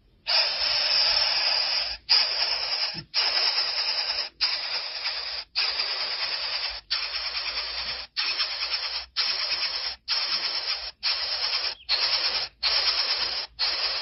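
Greater coucal nestlings begging with gapes wide open, giving a run of about a dozen harsh hisses, each about a second long with short breaks between.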